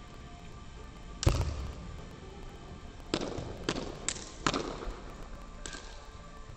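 Sharp slaps and stamps from a Shaolin kung fu tiger-form routine, echoing in a large sports hall: one heavy thump about a second in, then a run of five sharper slaps between about three and six seconds in.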